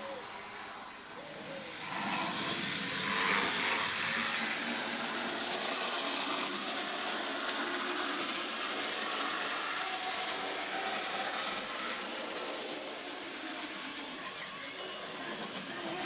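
N gauge model tank locomotive running along the track: its small electric motor whirs and its wheels run on the rails as a steady noise, louder from about two seconds in.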